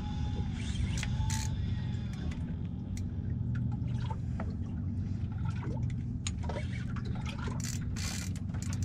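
Water lapping and splashing against a small boat's hull in small irregular slaps, over a steady low rumble.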